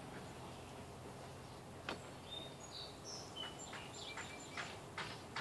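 Faint clicks and taps of a loose power wire being handled at the bench, with one sharper click about two seconds in and several smaller ones near the end. A few short, high chirps sound between them.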